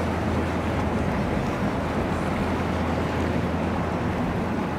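Boat engine running with a steady low drone, under a constant rush of wind and water noise.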